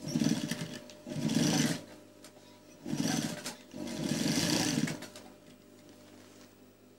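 Sewing machine stitching in four short runs, in two pairs, stopping about five seconds in: the seam being back-tacked to lock its end.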